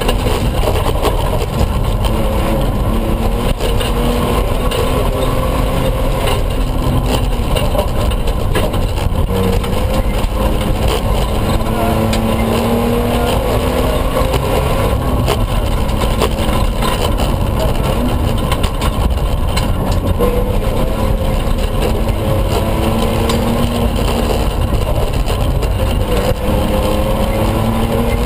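Toyota pickup rally truck's engine heard from inside the cabin, revving up and dropping again through gear changes again and again at racing pace, over a constant heavy rumble of tyres on the dirt road.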